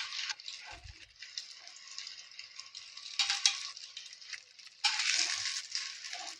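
Hot oil sizzling in a shallow frying pan as fried vegetable chops are lifted out, with short rattling clinks of the utensil against the pan. The sizzle swells twice, a little after three seconds and near five seconds in.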